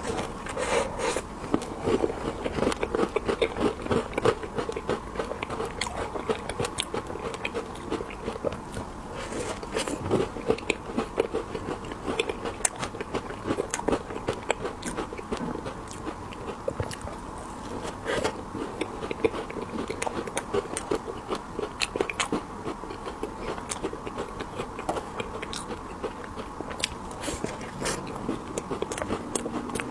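Close-miked biting and chewing of candied haws: the hard sugar coating crunches and cracks between the teeth in many small, irregular crunches, mixed with chewing of the fruit.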